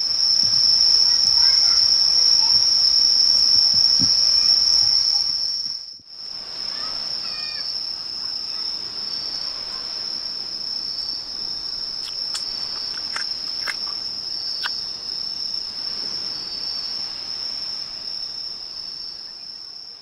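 Insects trilling as one steady, high-pitched, unbroken chorus. It cuts out briefly about six seconds in and carries on a little quieter, with a faint regular chirp about every second and a half. A few faint chirps come near the start and a few sharp clicks in the middle.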